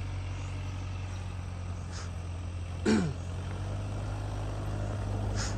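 Off-road vehicle engine running steadily at low revs. A few brief sharp noises come on top of it, with a short falling groan about three seconds in.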